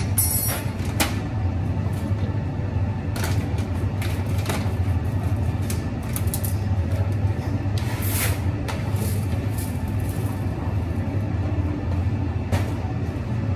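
Behind a cafe counter: a steady low hum under scattered clicks and rattles as a bag of coffee beans and a grinder hopper are handled, with a longer rattle of beans poured about eight seconds in.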